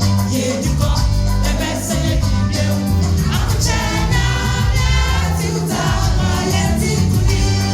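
Gospel music: singing voices over a steady bass line and a regular percussion beat.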